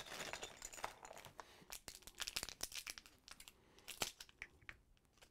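Thin clear plastic parts bag crinkling and rustling in the hands, with irregular crackles and a single sharper click about four seconds in.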